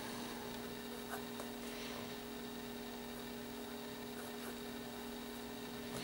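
Steady electrical hum, with a few faint scratches of a fine fountain-pen nib moving across paper as a word is written.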